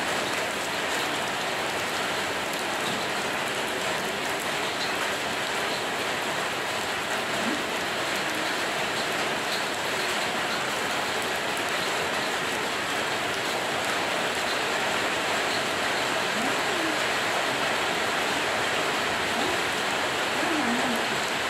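Rain falling steadily and hitting surfaces, an even unbroken hiss.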